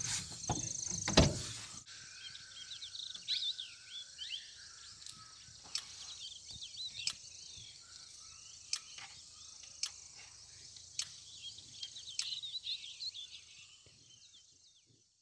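Small birds chirping over a steady high insect drone in grassland, with sharp clicks about once a second. Loud rumbling handling noise covers the first two seconds.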